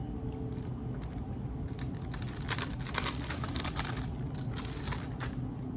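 Paper rustling and crinkling as the zine is handled, with a burst of quick crackles from about halfway through to near the end, over a low steady hum.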